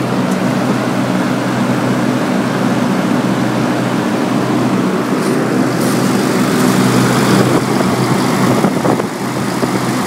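Daikin heat pump outdoor unit running with its coil iced up: a steady rush of fan air with a low, even compressor hum. The unit is not going into defrost, which the owner puts down to a failed defrost control.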